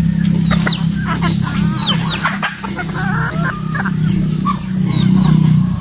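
A flock of native chickens, hens and roosters, clucking and calling in many short, overlapping calls over a steady low hum.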